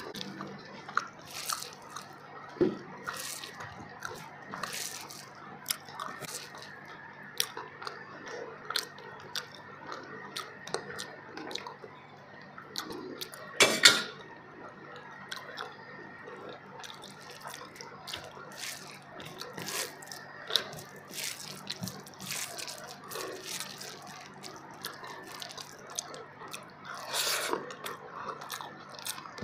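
Close-up eating sounds of a person chewing mouthfuls of fish biryani eaten by hand: irregular wet chewing and smacking clicks, with one louder sharp sound about halfway through.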